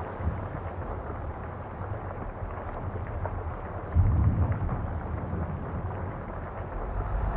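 Low rumbling film-trailer ambience like distant thunder, with a faint rain-like crackle over it; a deeper boom comes about four seconds in, and the rumble swells again near the end.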